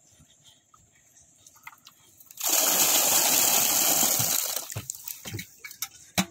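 Water and small live fish gushing out of a tipped pot and splashing into water. It starts suddenly about two seconds in as a loud, even rush, tapers off after a couple of seconds, and a few small splashes and knocks follow.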